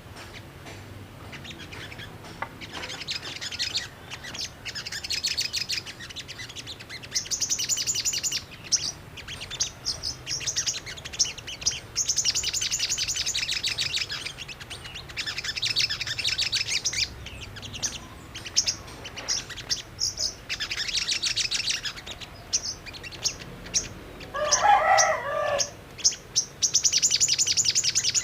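Sogok ontong (little spiderhunter) calling in repeated bursts of rapid, high, chattering trills, used as a lure to provoke other birds of its kind to answer. A lower, pulsed call stands out about 25 seconds in.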